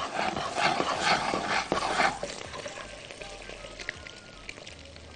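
Peeled boiled eggs frying and rolling in hot ghee in a frying pan as the pan is swirled: a sizzle with small knocks, louder for about the first two seconds, then settling to a quieter steady sizzle.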